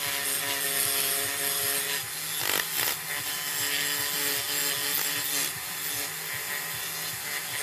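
Repeated rubbing and scraping strokes on the diecast metal body of a Dinky Toys Jaguar XK120 model as its old paint is worked off, over a steady low hum.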